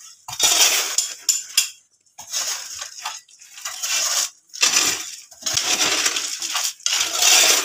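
Spades scraping and scooping through a heap of stone chips, sand and cement, stones rattling and clinking against the metal blades in about six separate strokes: concrete being mixed by hand.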